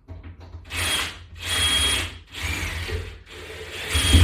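Cordless screw gun driving a screw into a drywall butterfly anchor in four short bursts, the motor whining steadily through each.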